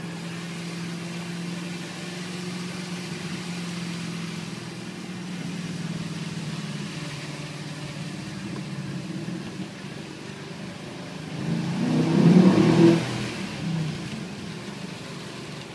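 Mercedes-Benz CLS 63 AMG's twin-turbo V8 cruising steadily, heard from inside the cabin. Near the end it gives a brief burst of hard acceleration, the loudest part, then eases off.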